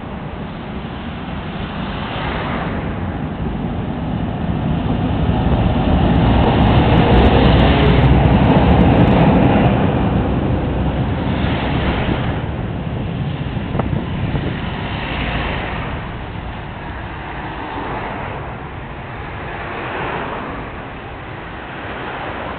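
Road traffic passing, a steady rumble that swells as a heavy vehicle goes by close, loudest about a third of the way in, then eases off.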